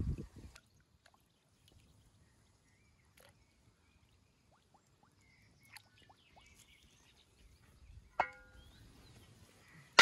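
A short low splash as a whole chicken goes into water in a cast-iron kazan, then near quiet. About eight seconds in, the cast-iron lid is set on the pot with one sharp metallic clank that rings briefly.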